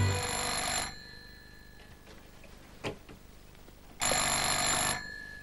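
Grey rotary-dial telephone's bell ringing twice, each ring just under a second long and about four seconds apart, with a single soft knock in between.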